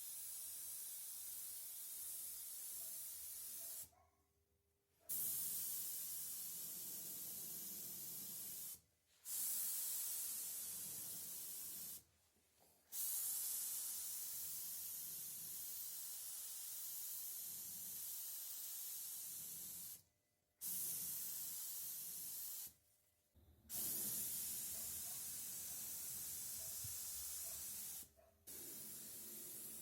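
Compressed-air spray gun hissing in long passes of a few seconds each, cut off six times by short breaks as the trigger is released, as coating is sprayed on a car body.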